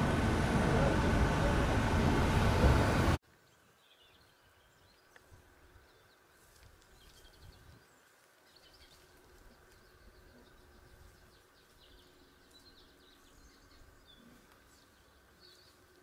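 Loud outdoor noise, a dense rush with a strong low rumble, cuts off abruptly about three seconds in. It gives way to a quiet countryside background with faint, scattered bird chirps.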